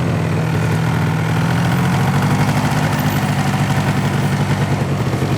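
Small vehicle engine running steadily at a constant low pitch, heard from aboard the moving vehicle.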